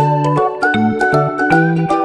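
Upbeat background music: a bright melody over a bass line that bounces in short notes.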